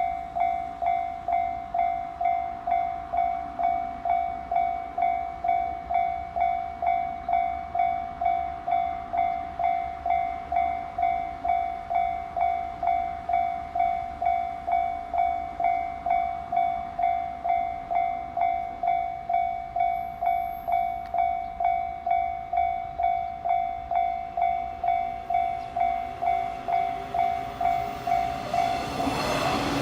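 Japanese railway level-crossing warning bell ringing, an electronic ding repeated about twice a second at one steady pitch. Near the end the ringing stops and a louder rushing noise builds.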